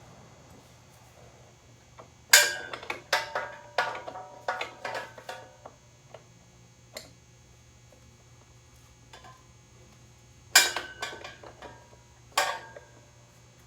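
Metal hand tools clanking and clinking with a short ring. There is a quick run of sharp, irregular clanks about two seconds in and another cluster near the end.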